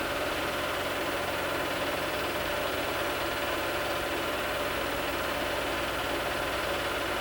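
Home-movie film projector running steadily, a constant mechanical whir over a low hum.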